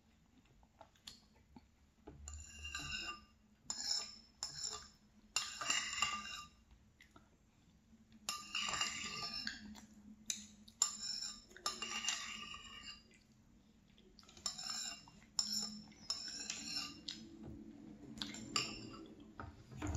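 Metal spoon scraping and clinking against a ceramic bowl in a string of short strokes every second or two, each with a bright ringing tone, as yogurt is scooped from the bowl.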